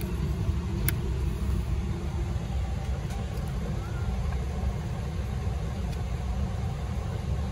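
Steady low rumble and airflow hiss inside the economy cabin of a Boeing 777-300ER parked before taxi, with a single sharp click about a second in.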